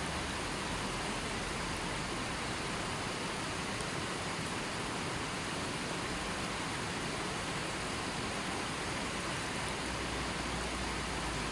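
Shallow, fast river running over rocks and stones: a steady, even rush of water.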